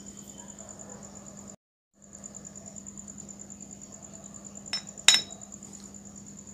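A glass clinks twice against a hard surface about five seconds in, the second knock the louder, over crickets trilling steadily. The sound drops out for a moment about one and a half seconds in.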